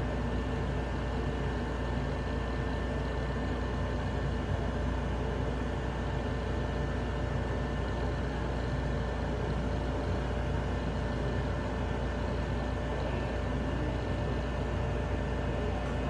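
Steady background hum and hiss with no distinct events.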